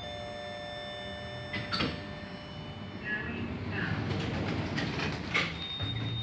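Passenger lift machinery and doors: a steady whine ends with a clunk about two seconds in, followed by rumbling and clattering of the car and sliding doors, with another knock near the end.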